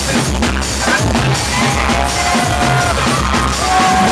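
Loud soca music with a heavy bass beat, drums and long held melodic notes.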